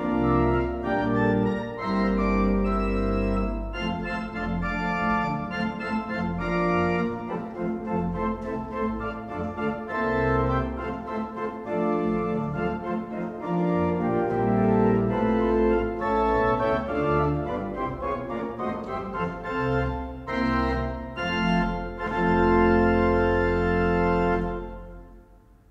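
One-manual Hewitt pipe organ playing a piece in sustained chords. It ends on a held final chord, the loudest part, which cuts off and dies away near the end.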